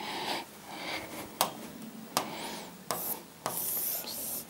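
Stylus writing on the glass of an interactive display board: soft scratchy rubbing strokes broken by a few sharp taps of the pen tip.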